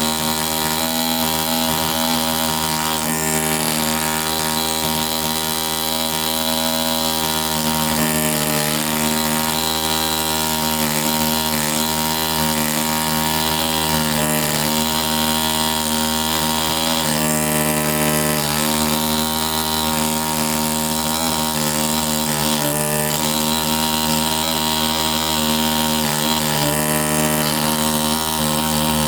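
ZOIC PalaeoTech Bronto pneumatic air scribe running continuously, a steady pitched buzz with a hiss on top that shifts slightly every few seconds.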